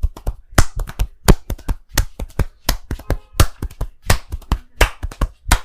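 Barber's hands tapping and slapping on a client in a percussive massage, a quick uneven run of sharp strikes, about four or five a second.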